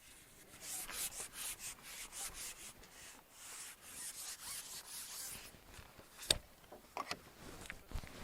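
Repeated scratchy rubbing strokes, several a second, followed by a few sharp clicks near the end.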